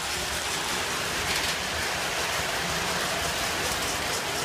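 Lionel O-gauge model trains running on three-rail tubular track: a steady rolling rumble and hiss of wheels and motors.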